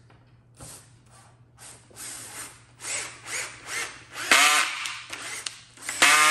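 Cordless drill-driver driving screws into a plywood pinball playfield in a series of short trigger pulses. The two longest and loudest runs come near the middle and at the end, each with the motor's whine rising as it spins up.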